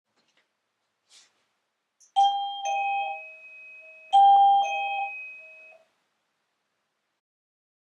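Electronic shop visitor-entry chime sounding a two-note ding-dong, a higher tone falling to a lower one, twice about two seconds apart. A faint click comes about a second before the first chime.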